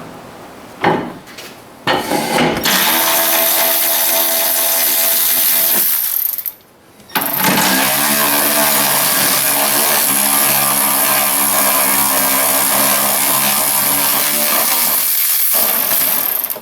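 Aerosol can of brake parts cleaner spraying in two long, steady hissing bursts, a short one and then a longer one, after a couple of brief knocks.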